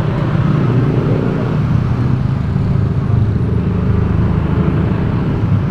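Steady road noise recorded from a moving vehicle: a continuous low engine and tyre rumble.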